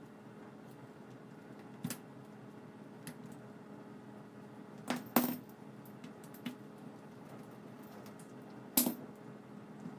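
Scattered sharp metallic clicks and taps from small camera parts and tools being handled, over a steady low hum. The loudest are a quick double click about five seconds in and a single click near nine seconds.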